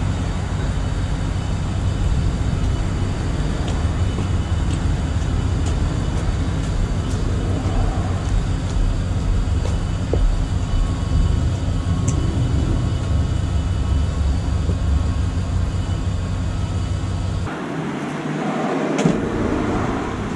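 Steady outdoor ambience, mostly a deep rumble. About three-quarters of the way through it changes suddenly: the rumble drops out, leaving a lighter hiss with a few faint clicks.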